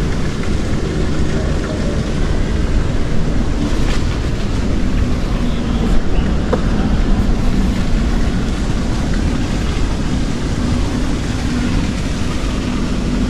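Motor running steadily under a dense low rumble of wind on the microphone, a faint hum holding an even pitch throughout.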